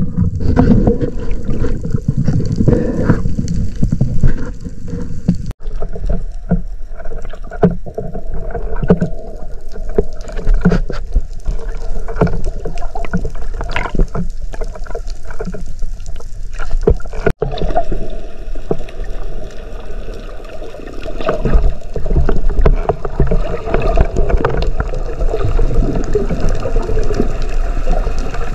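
Underwater sound picked up through a diving camera's housing: a steady low rush and gurgle of moving water, with scattered sharp clicks.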